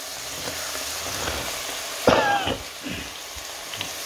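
Ground meat, carrots and celery frying in a pot, with a steady sizzle. About halfway through comes one short vocal sound.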